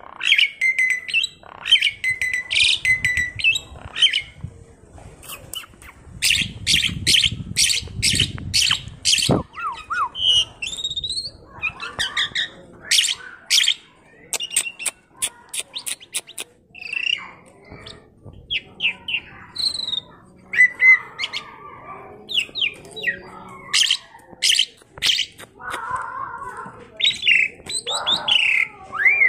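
Asian pied starling (jalak suren) chattering: a varied, nearly continuous run of rapid clicking notes, harsh squawks and short whistles, with brief pauses.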